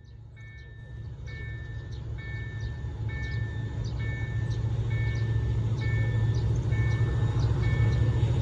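Railway level-crossing warning bell dinging about once a second, each ding two steady tones together, while the low rumble of an approaching train grows steadily louder.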